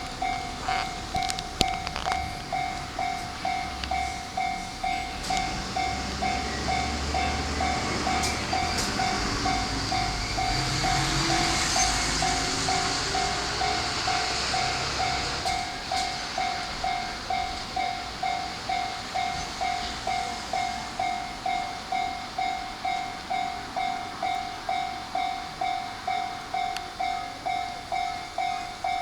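Japanese railway level-crossing warning bell ringing, a pulsed electronic ding about twice a second. Meanwhile an E217-series Yokosuka Line electric train runs over the crossing, pulling away from the station. Its rumble builds to its loudest about twelve seconds in and dies away by about sixteen seconds, and the traction motors' whine rises in pitch as the train accelerates.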